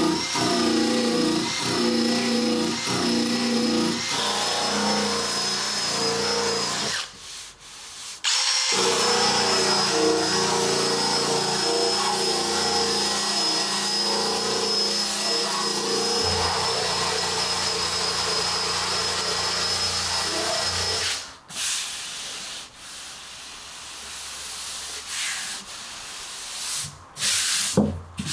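Power sander running on the dented steel side panel of a Porsche 991 GT3 RS, a steady high whine with the grit rubbing the metal. It stops about seven seconds in and starts again after a second or so. Near the end it gives way to quieter, irregular knocks and rubbing.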